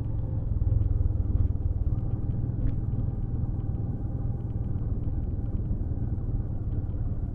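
Steady low rumble of wind and vehicle noise on a helmet-mounted SJCAM action camera's external microphone, which is wrapped in cotton and tape to cut wind noise.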